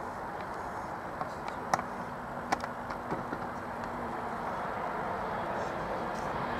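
Distant airliner's engines, a steady noise growing louder toward the end as the plane climbs out toward the listener, with a few sharp clicks over it.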